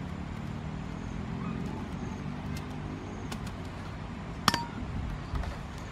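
Steady low outdoor rumble with faint bird chirps, and about four and a half seconds in a single sharp click with a short metallic ring.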